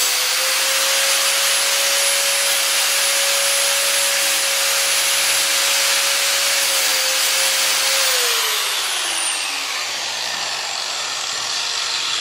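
Angle grinder grinding into an iPhone 6, with a steady motor whine over harsh grinding noise. About eight seconds in the grinder is switched off: its whine falls as the disc spins down, and the grinding noise fades out near the end.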